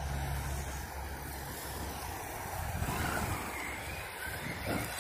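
Redcat Shredder 6S RC monster truck driving over grass, its brushless electric motor whining and its tyres running through the turf. It grows louder around three seconds in as it comes close.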